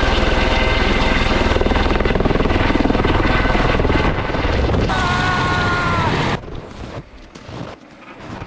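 Eurocopter helicopter landing close by, its rotor beating loud and fast, with a turbine whine joining in about five seconds in. The helicopter sound drops away abruptly about six seconds in, leaving a much quieter background.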